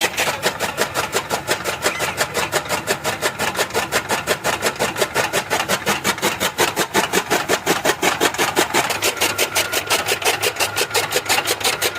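A small machine running with a steady, fast chugging beat, about seven beats a second, that cuts off suddenly at the end.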